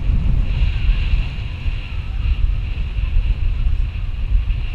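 Wind buffeting the microphone in a heavy low rumble over the wash of breaking surf.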